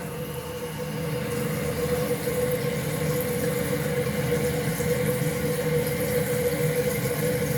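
Toilet fill valve refilling the tank with the water turned on slowly: a steady rush of water with a steady whine.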